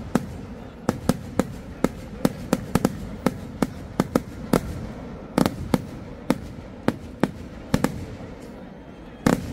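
Kerala temple-festival fireworks (vedikettu): a string of sharp firecracker bangs going off irregularly, two or three a second, with a louder double bang near the end, over a low steady rumble.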